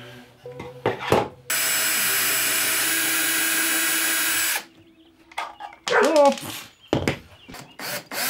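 Milwaukee cordless drill running steadily for about three seconds as it bores up into the desk's underside, with a knock just before and a few clicks and knocks afterwards as the drill and parts are handled.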